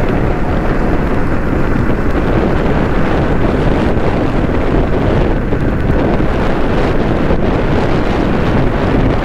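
Wind rushing over the microphone of a moving motorcycle, with engine and road noise beneath it, steady and loud.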